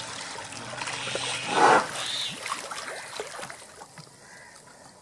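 Water sloshing and trickling as an Asian elephant bathes in a concrete pool, with one short, louder sound about one and a half seconds in.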